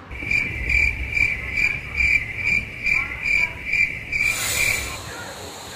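Cricket chirping: a steady high chirp repeated about twice a second, stopping near the end. A high hiss comes in about four seconds in.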